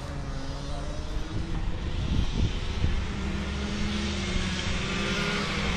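Rotax Mini Max two-stroke kart engine running on track, its note rising and falling with the throttle and growing slowly louder as the kart comes closer.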